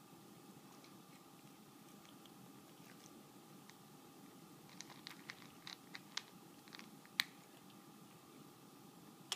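Two cats eating from a stainless steel bowl: faint chewing, with a run of short sharp clicks in the second half, the loudest about seven seconds in.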